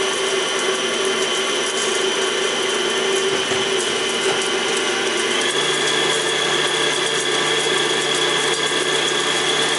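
Kenwood Chef 750 W stand mixer motor running steadily with its K-beater turning a crumb, butter and sugar mixture in the steel bowl. About five and a half seconds in, its whine steps up in pitch as the speed is turned up.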